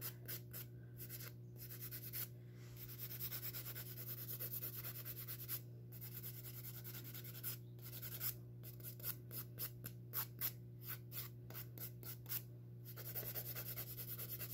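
Hand nail file rasping back and forth across fingernails in quick, even strokes, about three a second, with a few short pauses as the file moves between nails.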